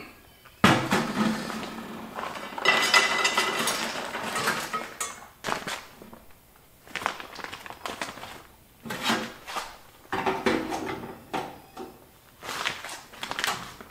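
Whiskey barrel oak wood chips poured and rattling into the electric smoker's metal chip pan for the first few seconds. After that come scattered clinks and knocks as the filled pan is set into the bottom of the smoker.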